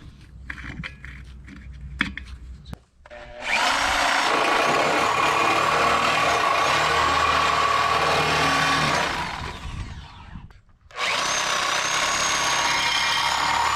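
Air-powered impact wrench run on the driveshaft nuts, whose studs spin instead of coming loose. It is preceded by a few faint clicks of handling, runs loud and steady for about six seconds, stops briefly, then runs again from about eleven seconds in.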